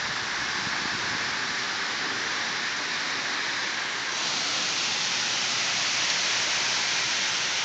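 Heavy rain pouring down steadily on a yard and porch, a little louder from about four seconds in.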